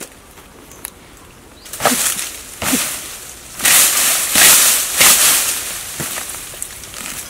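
Dry palm fibre and rotten stump wood torn and wrenched apart by hand: several loud, rough tears, each up to about a second long, starting about two seconds in.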